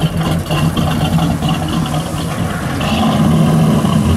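A classic American muscle car's V8 engine running steadily, getting a little louder about three seconds in.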